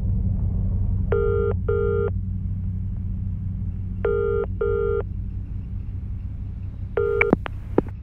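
Telephone ringing in a double-ring pattern, two short rings every three seconds, over a steady low rumbling drone. The third ring is cut off near the end by a couple of clicks, as when the call is picked up.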